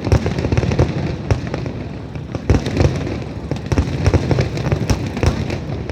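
Aerial fireworks display going off in a rapid barrage of many overlapping bangs and crackles over a continuous low rumble.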